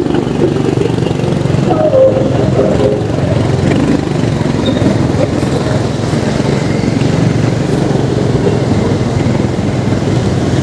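Steady running noise of a moving vehicle: engine and road noise, with wind on the microphone.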